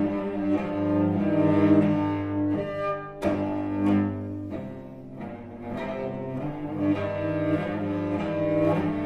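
Solo cello playing sustained bowed notes, with a sharp accented stroke about three seconds in and a softer passage around the middle.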